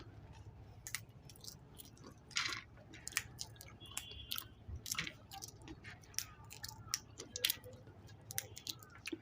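Raw peanuts being cracked out of their shells by hand and chewed: an irregular string of small sharp cracks and crunches.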